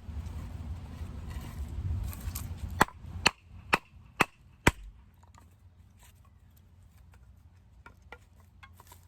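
Knife being batoned through wood: a run of five sharp, hard hits about two a second, with faint clicks of wood after.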